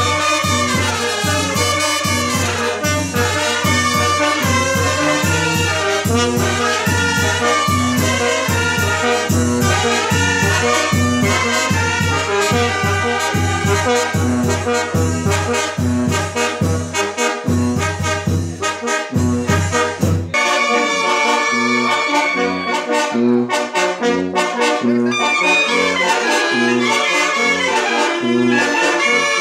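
Oaxacan wind band (banda de viento) of trumpets, trombones, saxophones and clarinets playing a tune over a steady low bass beat. About two-thirds of the way through, the sound changes abruptly and the deep bass drops out, leaving the brass and reeds carrying the melody.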